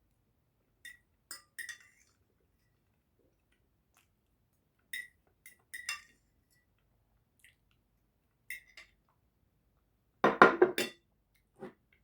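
Cutlery clinking lightly against dishes, a few scattered ringing clinks, then a louder clatter of tableware about ten seconds in and one last knock near the end.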